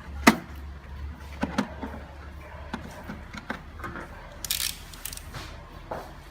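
Sharp clicks and knocks of steel hand tools and a steel tool box being handled, with the loudest knock about a third of a second in. A short scraping hiss comes a little past the middle, like a drawer sliding.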